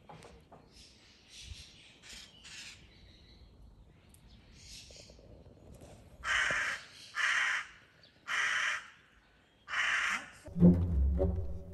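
Crows cawing: a few faint caws, then four loud caws about a second apart, each about half a second long. Orchestral music with low strings comes in near the end.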